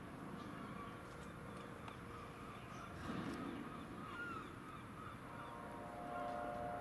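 Faint low drone of a distant helicopter circling overhead, with birds giving short calls over it. A steady hum comes in about five seconds in.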